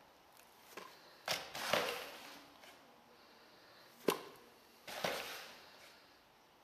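A plastic spoon stirring cement mix in a clear plastic bowl, scraping and knocking against the bowl: a few separate scrapes, with a sharp click about four seconds in the loudest.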